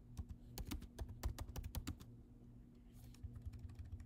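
Typing on a computer keyboard: a quick run of key clicks that thins out about two seconds in and picks up again near the end.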